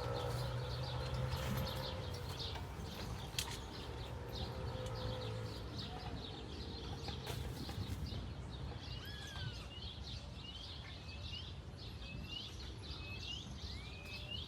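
Wild birds calling and singing outdoors, with many short high chirps and, from about nine seconds in, one bird repeating a short curved whistled note about once or twice a second. A low steady hum sits underneath for the first few seconds, then fades.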